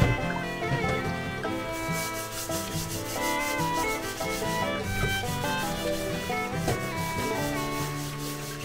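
An octopus being scrubbed and rubbed over and over, a repeated rasping rub, under background music with shifting notes.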